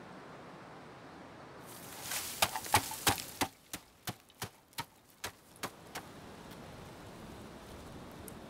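A pole jabbing into the earth covering of a charcoal kiln: about a dozen sharp knocks, quick and uneven at first, then steadier at two or three a second and fading away. A steady outdoor hiss lies under them.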